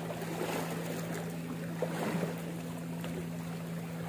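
A steady low motor drone over wind and sea noise, with a few faint clicks.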